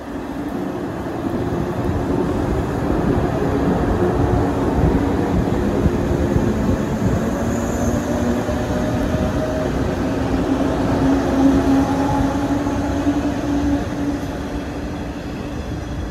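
JR West 117-series electric train pulling out and running past, its motors humming steadily over a rumble of wheels on rail. The sound swells over the first few seconds and falls away near the end as the last cars go by.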